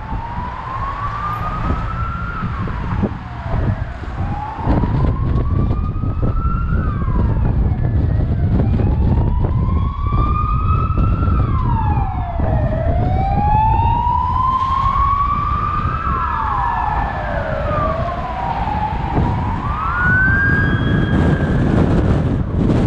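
Emergency vehicle siren wailing, rising slowly and falling more quickly about five times over. Low road and wind noise from a moving car runs underneath.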